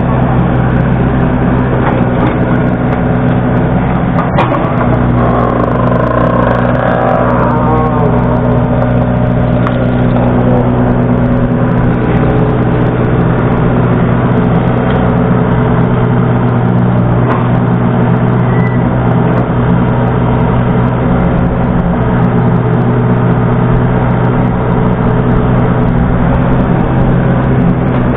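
Yanmar mini excavator's diesel engine running steadily under load as the hydraulic boom works and the bucket digs into the bank, with one sharp knock about four seconds in.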